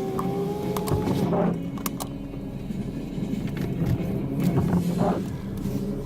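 Car running, heard from inside the car: a steady low engine hum with a few sharp knocks.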